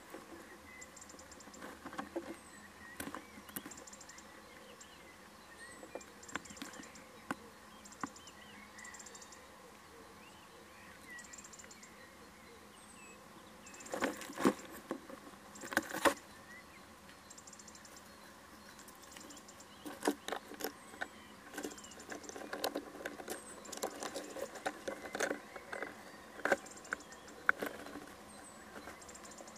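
Owl shifting about in a wooden nest box: scratchy rustles and clicks of its feet and body on the nest litter and boards, in bursts a little past the middle and again through the last third. Faint, short high chirping pulses repeat in the background.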